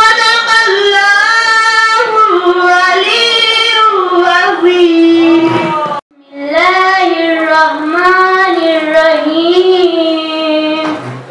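A young voice reciting the Quran in a melodic chant, holding long, ornamented notes that glide up and down in pitch. It sings two long phrases, with a brief pause for breath about six seconds in.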